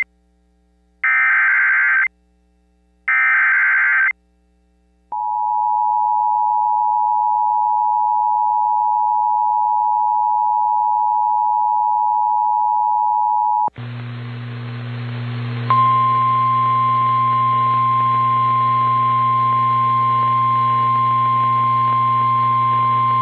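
Emergency Alert System tones. First come two short, buzzy digital data bursts about a second each and a second apart, the end-of-message signal closing the previous alert. Then the steady two-tone EAS attention signal holds for about eight seconds and cuts off abruptly into radio hiss and hum. About two seconds later a single-pitch weather radio warning alarm tone begins and holds steadily over the hiss.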